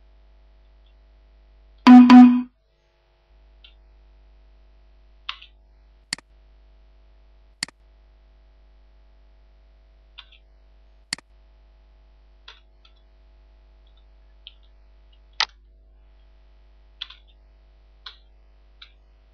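A very loud, distorted pitched blare lasting about half a second, about two seconds in, followed by scattered single clicks of computer keyboard keys being typed, a dozen or so at irregular intervals.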